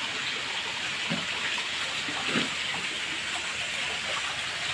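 Water jetting from an inlet pipe into a concrete fish tank, a steady splashing and pouring.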